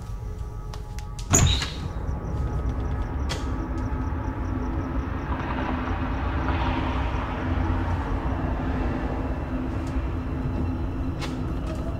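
A sharp bang about a second in, then a low rumbling drone with a held low tone and a hissing rush that swells and fades: an ominous horror-film sound-design bed.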